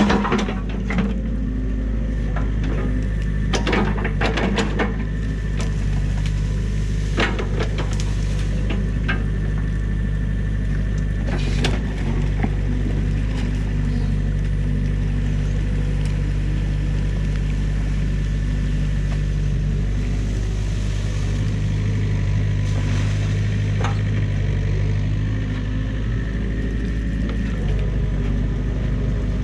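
New Holland mini excavator's diesel engine running steadily as it digs out a beaver dam, with a few sharp knocks scattered through.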